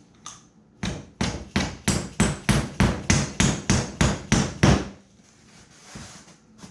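A hammer striking about a dozen times in an even rhythm, roughly three blows a second, then stopping.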